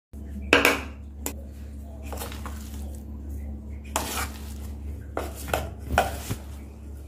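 Kitchen utensils clinking and knocking against a bowl, several separate strikes with some scraping, while the potato tikki mixture is mixed with cornflour. A steady low hum runs underneath.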